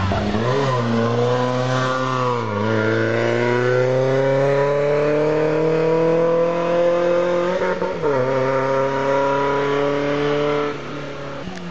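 Race car's engine accelerating hard out of a hairpin and up a hill climb. The revs climb through the gears, with upshifts about two and a half and about eight seconds in. Near the end the sound falls away as the car pulls off into the distance.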